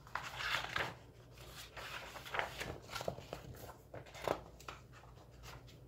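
Paper pages of a picture book being handled and turned: a run of rustles and crinkles that dies down about four and a half seconds in.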